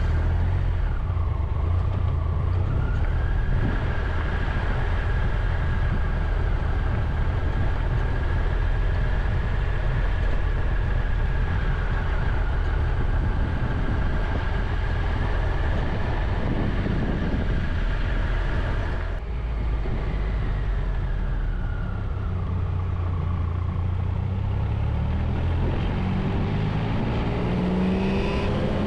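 Triumph Tiger 1200's three-cylinder engine running steadily at low road speed, with a steady whine above the engine note. Near the end the engine note rises as the bike accelerates.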